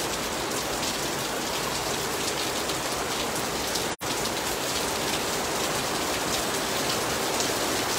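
Heavy rain falling steadily on the street and paving, an even hiss of countless drops. The audio cuts out for an instant about halfway through.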